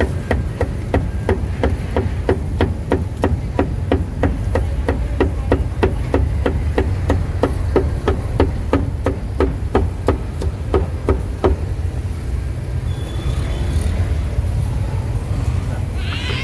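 Cleaver chopping roast meat on a wooden block: even, sharp strokes about three a second that stop about eleven seconds in, over a steady low traffic rumble.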